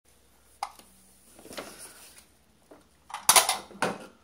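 Plastic toy dishes and a toy coffee pot knocking and clattering on a plastic toy kitchen counter. There is a sharp knock just over half a second in, a softer clatter a second later, and the loudest cluster of knocks near the end.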